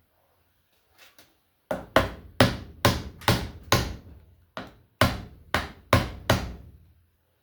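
Hammer blows, about a dozen at roughly two a second, each ringing briefly, after two light taps, as parts of a kitchen exhaust fan are knocked apart or driven into place during bearing replacement.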